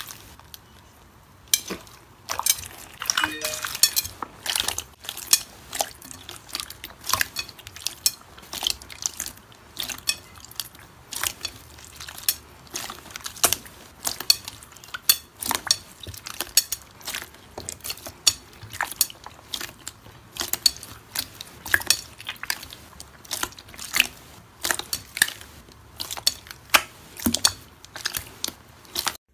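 Clear slime with a crisp outer skin and foam beads mixed in, squeezed and pressed by hand: irregular sharp clicks and wet pops, several a second, as the skin and trapped air burst.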